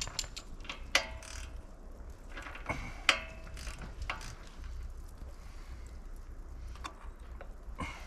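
Hand tools clicking and clinking on metal as a portable generator's engine is worked on, with two sharp ringing clinks about a second and three seconds in and lighter clicks between.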